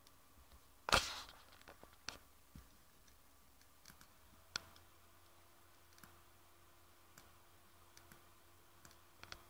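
Computer mouse clicking: one loud click about a second in, then several fainter clicks, over a faint steady hum.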